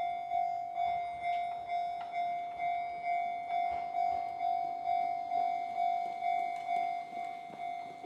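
Japanese level-crossing warning bell ringing "kan-kan" on the Enoden line: one ringing tone struck about two and a half times a second, each strike fading before the next. It is the signal that a train is approaching the crossing.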